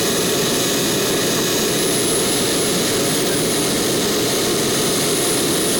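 Model jet turbine running steadily: a constant high whine over an even rush of noise.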